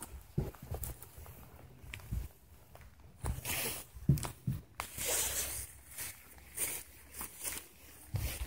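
Footsteps through wet, long grass: uneven swishes and soft thumps, with rustling.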